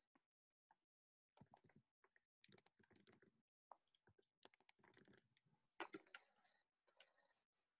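Faint, irregular keyboard typing and clicking picked up over a video call, the rest near silence.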